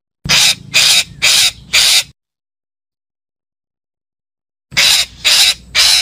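Red-breasted parakeet (betet) calling: four loud, harsh calls about half a second apart, a pause of a few seconds, then three more near the end.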